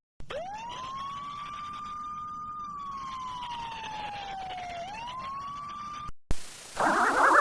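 A siren wailing: a single tone winds up from low to high, holds, slowly sinks, then rises and holds again before cutting off abruptly about six seconds in. A click follows, then a louder sound with several tones starts rising near the end.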